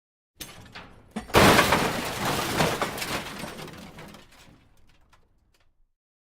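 A car dropped onto another car. A few small knocks about half a second in lead into a heavy crash of crumpling metal and breaking glass about a second and a half in. Debris rattles and settles, fading away over the next few seconds.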